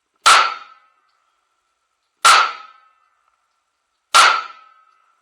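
Three pistol shots about two seconds apart, each followed by a short ringing tail.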